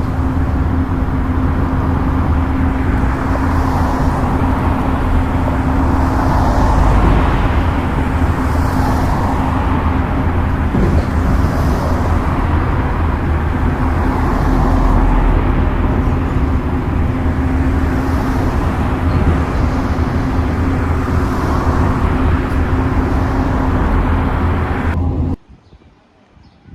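Bus running along the road, heard from inside: a steady low engine and road drone with a constant hum that cuts off abruptly near the end.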